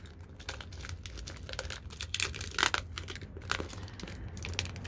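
Plastic bag of costume jewelry crinkling and rustling as it is handled, with scattered sharp crackles.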